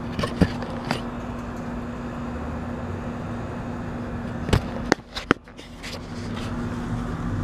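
Sharp clicks and knocks from handling the opened metal cabinet and parts of an air-conditioner condensing unit, a few in the first second and a cluster about four and a half to five and a half seconds in, over a steady low hum.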